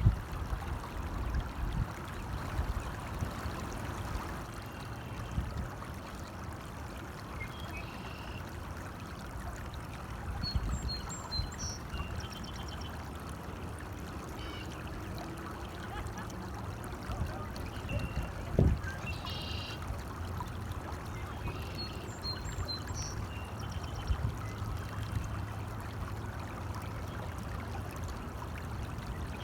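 A stream running steadily, with short bird chirps now and then and a couple of low thumps.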